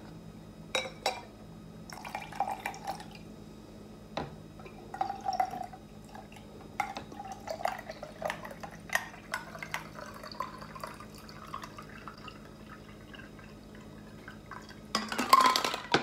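A drink being poured from a copper cocktail shaker into a hammered copper mug, with scattered clinks of metal and drips of liquid. A louder burst of sound comes near the end as the mug is raised to the mouth.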